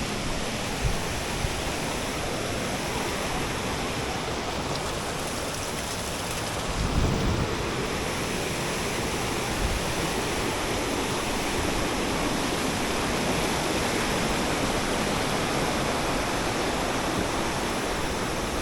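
Waterfall pouring into its plunge pool, a steady rushing of water from a strong flow. There is a brief low rumble about seven seconds in.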